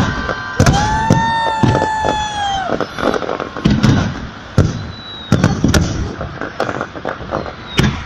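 Fireworks salute going off: a dozen or so booms and sharp cracks of bursting shells one after another, with drawn-out whistling tones sounding between them.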